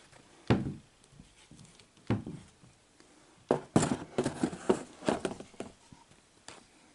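Handling noises as an air rifle is taken out of its packaging: a few separate knocks, then a busy cluster of knocks and scrapes in the middle, and one more knock near the end.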